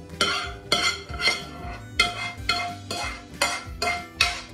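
A spatula scraping and knocking cooked minced meat out of a non-stick frying pan into a glass bowl, in short repeated strokes about twice a second, over faint background music.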